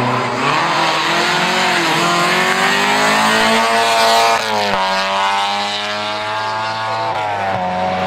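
Classic BMW 02-series rally car's four-cylinder engine accelerating hard, its pitch climbing through the revs. About halfway in the pitch falls sharply, as at an upshift, then climbs again, with another drop near the end.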